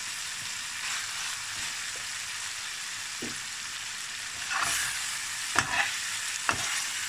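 Pork belly pieces sizzling in hot fat with sautéed tomatoes in a frying pan, stirred with a metal spatula. Four short scrapes and knocks of the spatula against the pan come in the second half.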